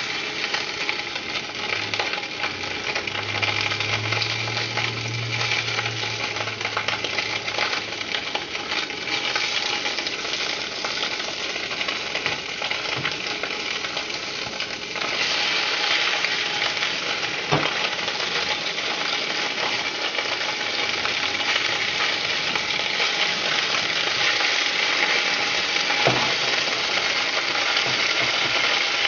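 Fish balls and crab pieces sizzling in hot oil in a stainless steel pan, stirred with wooden chopsticks, with a few sharp clicks of the chopsticks on the pan. The sizzle gets louder about halfway through.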